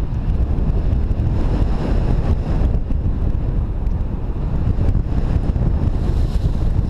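Airflow buffeting the microphone of a camera on a paraglider pilot in flight: a steady, loud, low rumbling rush of wind.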